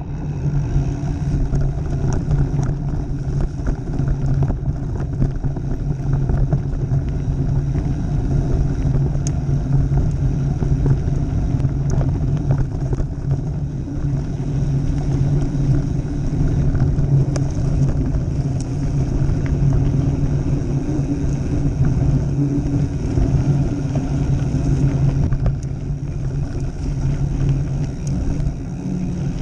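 Mountain bike riding along a dirt trail: knobby tyres rolling over dirt and stones, with scattered clicks and rattles and a steady low hum throughout.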